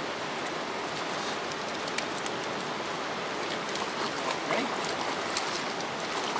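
Steady rush of a flowing river over shallows, with light splashing in the second half as a corgi wades into the water.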